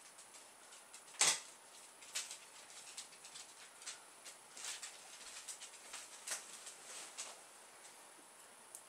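Faint, irregular scratching and light ticks of a thin angled makeup brush and its handling as brow product is worked into an eyebrow, with one sharper click about a second in.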